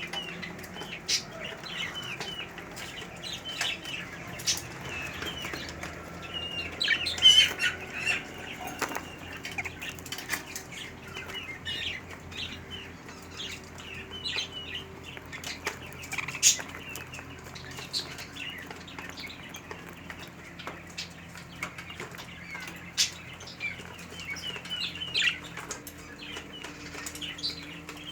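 A flock of small kept birds chirping in many short calls, with wings flapping and sharp clicks now and then.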